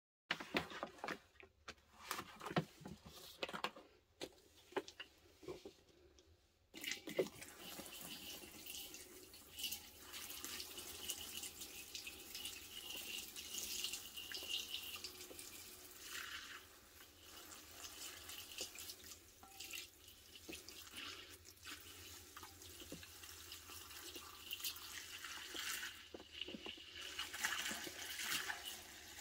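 Pine Plus cleaner poured from a gallon jug onto two porous sponges in a glass bowl, splashing and foaming. It starts as scattered drips and clicks, then becomes a steady pour about seven seconds in.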